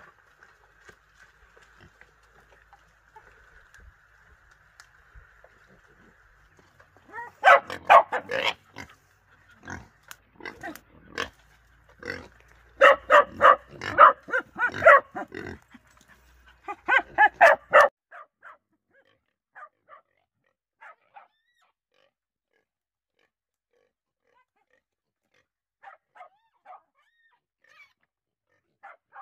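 Young wild boars in a pen calling loudly in four bouts over about ten seconds, then falling quiet.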